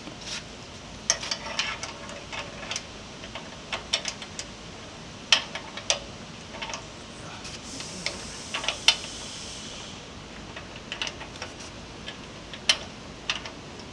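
Irregular metal clicks and clinks as ring-topped locking pins are pushed through a handle bracket and snapped into place, with a faint hiss for a couple of seconds near the middle.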